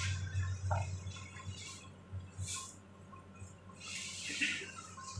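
Warm water splashing and dripping in a small wash basin as a washcloth is wetted for a bed bath, in a few short splashes over a steady low hum.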